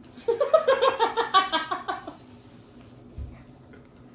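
A burst of high-pitched laughter, quick repeated pulses lasting about a second and a half, followed by a low thump about three seconds in.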